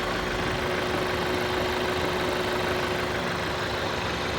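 Škoda Octavia A7's 1.8 TSI four-cylinder turbo petrol engine (CJSA) idling steadily while warming up, with no distinct knock standing out at this point.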